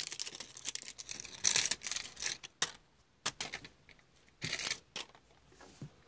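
Clear plastic wrapping being torn and crinkled off a toy sticker dispenser, in short irregular bursts of crackling with brief pauses.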